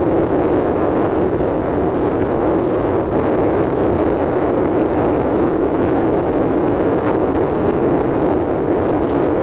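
Steady rushing noise inside a car, even and unbroken, with no distinct events.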